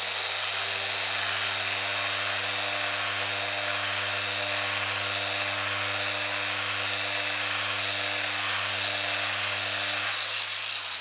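Electric random orbital sander running steadily with its pad on a cherry board. It shuts off near the end.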